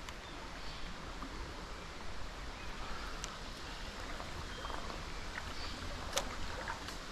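Steady rush of the small canal's flowing water, with a couple of faint clicks, the sharper one about six seconds in.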